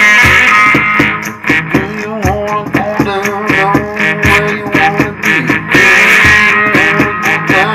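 Electric three-string cigar box guitar with a slim single-coil pickup playing a blues-rock riff over a steady drum beat, some notes bending in pitch.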